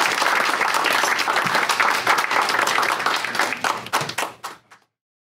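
Small audience applauding, the clapping thinning to a few last claps and stopping about four and a half seconds in.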